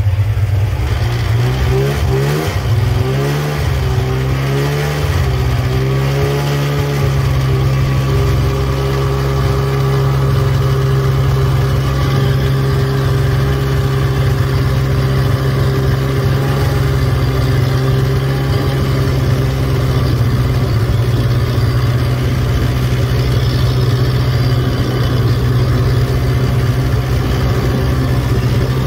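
Snowmobile engine towing a snow tube: its pitch rises and falls several times over the first few seconds as the throttle is worked, then it runs at a steady speed.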